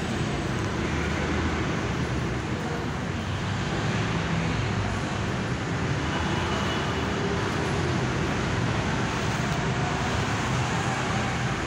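Steady road traffic noise: buses, cars and motorbikes running around a busy roundabout, an even rumble and hiss with no single vehicle standing out.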